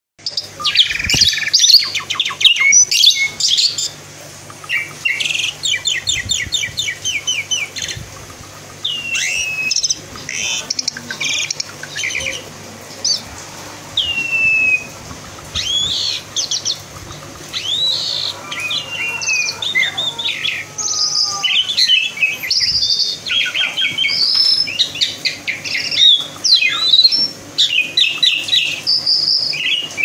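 Asian pied starling singing intensely while puffing up on a hand: a long, varied song of chattering runs, rattles and whistled glides, full of mimicked notes, delivered in bursts with short pauses.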